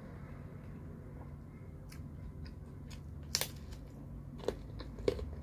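Crispy pizza crust bitten and chewed close to the microphone: a few sharp crunches, the loudest about three and a half seconds in.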